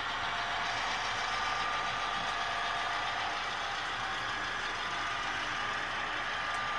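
Model freight train rolling along the track, with the steady diesel engine sound of its sound-equipped locomotive.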